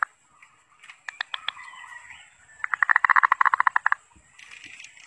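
Zebra dove (perkutut) singing. A few short notes come about a second in, then a fast, even run of rattling coos lasts just over a second.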